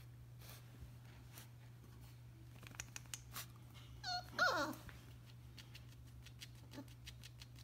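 Young puppy giving two short whining yelps about four seconds in, the second louder and falling steeply in pitch. A few light clicks come just before, and a steady low hum runs underneath.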